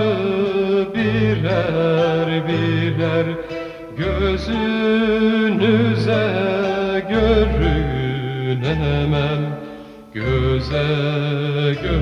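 Music: a slow Turkish-style piece with a wavering melody over sustained low bass notes that change every second or so.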